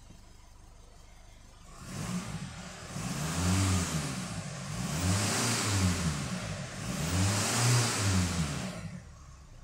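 2014 Holden Colorado's 2.8-litre four-cylinder turbo-diesel engine idling, then revved three times in a row, each rev rising and falling in pitch over about two seconds with a hiss at its peak, and settling back to idle near the end.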